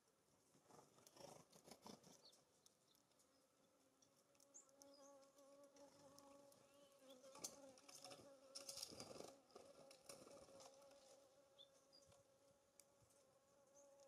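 Faint buzzing of a flying insect, a steady hum that wavers slightly and grows stronger a few seconds in. Scattered faint clicks and taps run through it, with a few short, faint high bird chirps.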